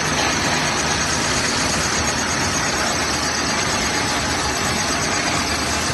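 Fabric-and-PVC-film laminating machine running: a steady, even mechanical noise from its electric drive motor and turning rollers.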